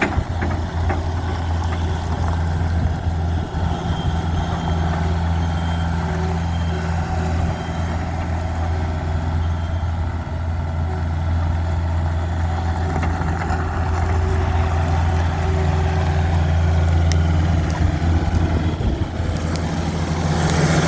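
Kubota SSV75 skid steer's four-cylinder diesel engine running steadily at idle, a low, even drone, growing louder and harsher just at the end.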